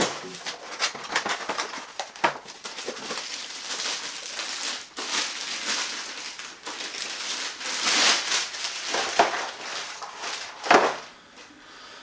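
Clear plastic bag crinkling and rustling as a robot vacuum is pulled out of it and out of its cardboard box, with scattered small clicks of handling and one louder, sharp crackle near the end.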